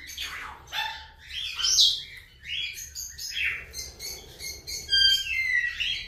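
Lovebirds and other small caged parrots chirping: many short, quick calls that slide up and down in pitch, several overlapping.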